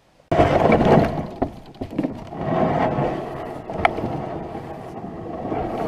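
Rustling and knocking of camping gear being handled close to the microphone beside a loaded canoe: a dense, noisy clatter that starts abruptly with scattered sharp clicks.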